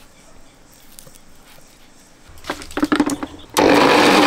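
Electric kitchen mixer grinder with a steel jar, switched on in a couple of short bursts about two and a half seconds in, then running steadily and loud from about three and a half seconds in.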